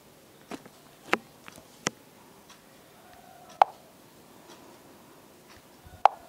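About five sharp taps and clicks, spaced irregularly, from fingers tapping and handling a smartphone close to its own microphone, over a low room hiss.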